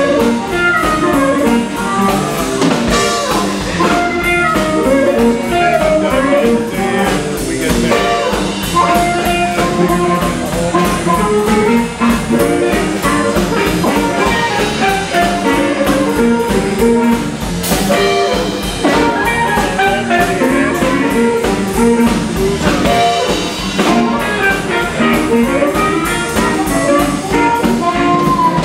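Live blues band playing: a harmonica played into a handheld microphone carries the lead over electric guitar, bass guitar and drum kit.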